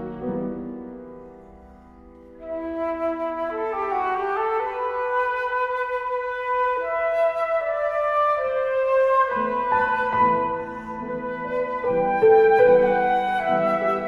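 Classical flute and piano duet. The music dies down over the first two seconds, then about two and a half seconds in the flute comes in with long held, stepping notes over piano chords.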